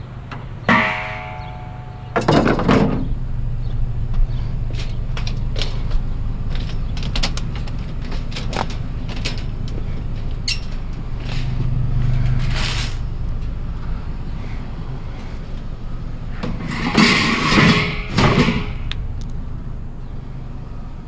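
Scattered knocks and clatter of objects being handled, with two louder noisy stretches about two seconds in and near the end, over a steady low hum.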